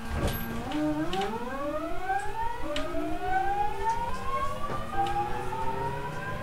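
JR East 209 series EMU's GTO-thyristor VVVF inverter and traction motors whining as the train accelerates from a stop, several tones gliding steadily upward together as speed builds. A few short clicks are heard over the rising whine.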